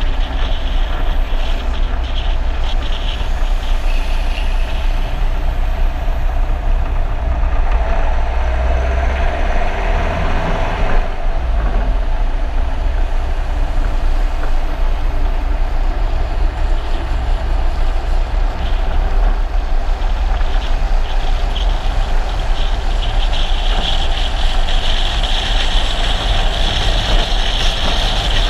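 Loud, steady rush of wind on the microphone and road noise from a follow car driving at speed, with a constant low rumble underneath.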